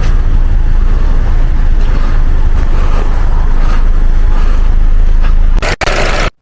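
Steady low rumble of a 2015 Audi A4 being driven: engine and road noise, with no distinct knock standing out. It drops out briefly near the end.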